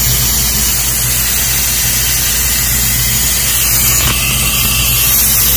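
Nitrogen hissing steadily as it is blown through a prep table's refrigeration lines to purge them, with a steady low motor hum underneath.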